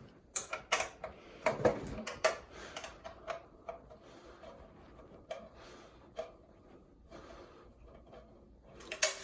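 Phillips screwdriver working a screw out of a bathroom exhaust fan housing: irregular clicks and ticks, busiest in the first couple of seconds, with two sharper clicks near the end.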